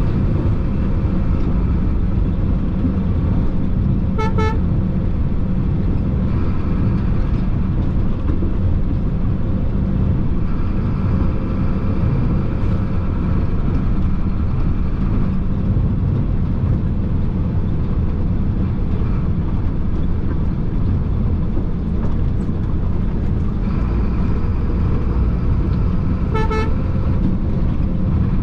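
Chenglong concrete mixer truck's diesel engine running steadily with road noise, heard from inside the cab. A vehicle horn gives two short toots, one about four seconds in and one near the end.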